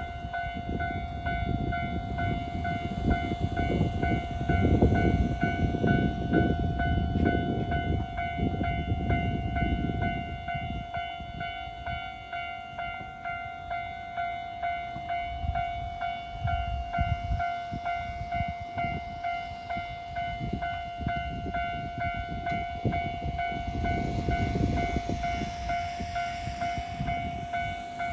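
A Japanese railway level crossing's warning bell rings continuously in a fast, evenly repeating tone, while a Nagano Electric Railway train rumbles past over the crossing. The rumble is loudest in the first ten seconds and rises again near the end.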